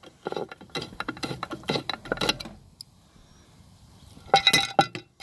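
Cover being taken off a wall-mounted solar electrical enclosure: a run of clicks and knocks, a short lull, then a louder cluster of ringing clinks near the end.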